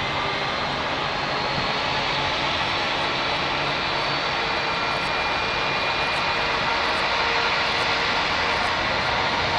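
Jet engines of an Airbus A320-family airliner heard steadily as it lands and rolls out. The noise grows a little louder in the second half, after touchdown.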